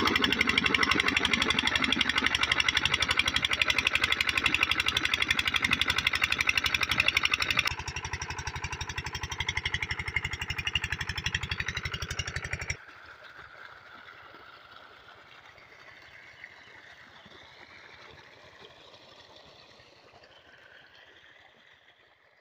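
Small 6 hp diesel water-pump engine (Indian Kisan 300D) running steadily with a rapid, even beat, pumping water from a borewell. About eight seconds in it becomes quieter, and near thirteen seconds it drops sharply to a faint sound.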